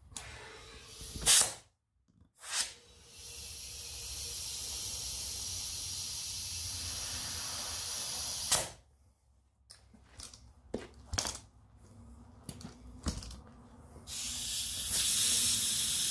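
Compressed air hissing through an air chuck into a riding mower tire's inner tube as it is inflated: one long steady spell of about five seconds, then a shorter one near the end. Sharp knocks and clicks come between, the loudest a little over a second in.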